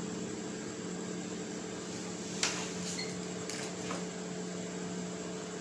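Steady electrical hum with a hiss underneath, as of a fan or appliance running, with a light click about two and a half seconds in and a few faint ticks after it.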